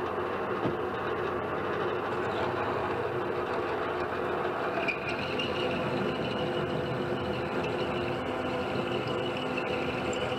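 Metal lathe running steadily, its spindle and gearing giving a constant mechanical hum with whine. About five seconds in, a higher ringing tone joins as the tailstock die holder comes up against the spinning workpiece.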